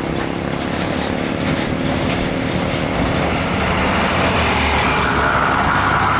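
Hino 500 truck's diesel engine running as the loaded truck and trailer roll slowly closer, growing louder, with road noise around it.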